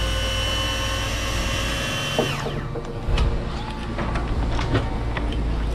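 A small electric motor whining steadily over a low hum, then winding down in pitch and stopping a little over two seconds in. Scattered clicks and knocks follow.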